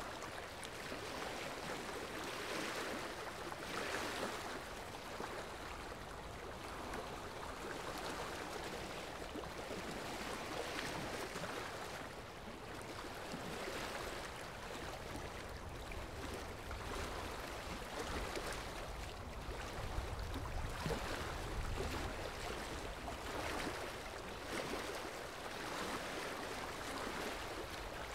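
Steady rushing water, swelling and easing every second or two, with a low rumble coming in around the middle.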